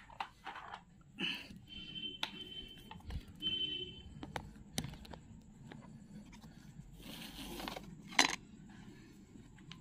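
Handling noise from a phone being moved about and set in place, with towel rustling and scattered clicks and knocks, two short squeaky tones early on, and one sharp clack just after 8 s as the phone settles.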